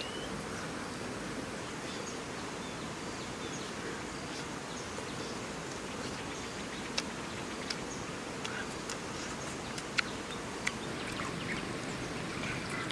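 Steady outdoor ambient hiss with insects buzzing, and a few sharp clicks in the second half.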